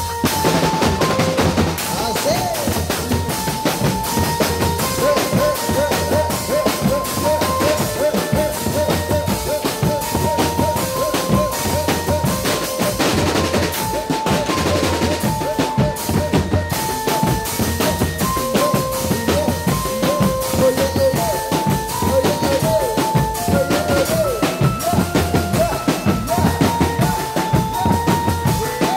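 Drum band music: dense, continuous drumming with bass drum and snare under a melody of held notes that step up and down.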